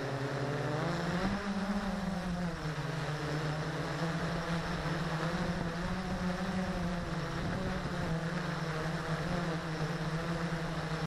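Blade 350QX quadcopter's four motors and propellers buzzing steadily in a hover, heard from the camera mounted on the drone. The pitch steps up about a second in, then settles back lower and holds.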